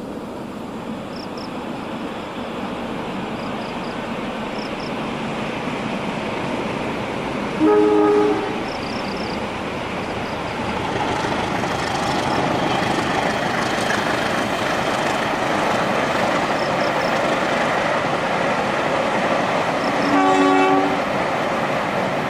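A train approaching and running past on the line, its rumble growing louder, with the diesel locomotive sounding two short horn blasts, one about a third of the way in and one near the end.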